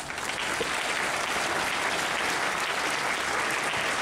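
Audience applauding steadily, a dense sustained clapping that swells in right at the start.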